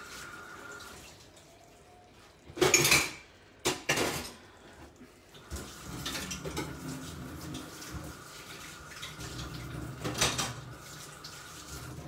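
Pots, pans and dishes clattering as kitchenware is handled, with loud clanks about three and four seconds in and again near ten seconds.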